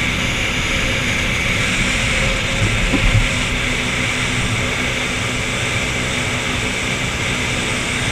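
A 30-foot New Zealand-style jet boat running at speed: the steady drone of its engine and water jet, with rushing wind and water. A few low thumps come about three seconds in.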